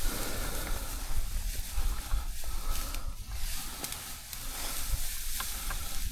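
Uneven low rumble of wind buffeting the microphone, with rustling and a few faint clicks from movement over the ground.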